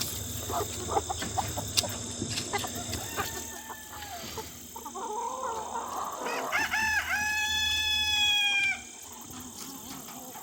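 Chickens clucking, then a rooster crows once in the second half: a long held call that cuts off sharply.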